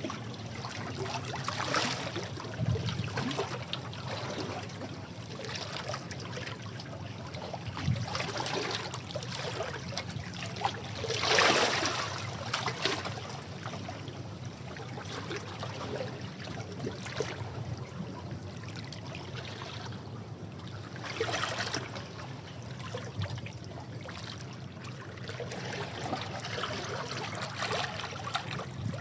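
Sea waves washing against rocks: a continuous wash of water with surging swells, one larger wave breaking about eleven seconds in and another around twenty-one seconds.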